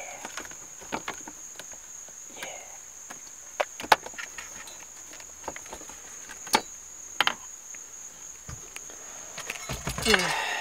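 Scattered clicks and light metal knocks as the shifter's stamped-metal bracket plate and plastic clips are worked loose and handled by hand, over a steady high-pitched whine. A louder rustle of handling comes near the end.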